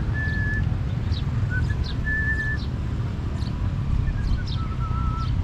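Steady low rumble, like a vehicle on the move, with clear whistled notes over it. A few short notes step up in pitch, and three are held for about half a second each, at the start, about two seconds in and near the end, mixed with faint short chirps.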